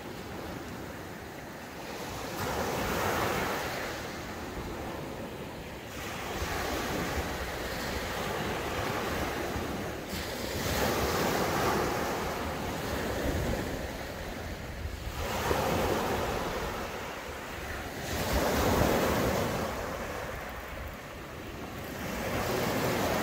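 Sea waves breaking on a beach, each one swelling up and washing in, about every three to five seconds.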